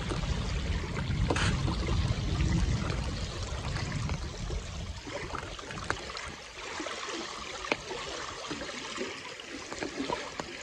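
Wind rushing over the microphone, with a heavy low buffeting for the first few seconds that eases about halfway through. A few light clicks from a knife slicing butter on aluminium foil.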